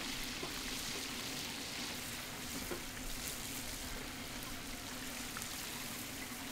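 Squid deep-frying in hot oil: a steady sizzling hiss with fine crackles, over a faint steady low hum.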